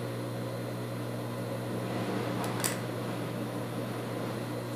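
Steady electric motor hum, a low even tone. A short, light handling sound comes about two and a half seconds in.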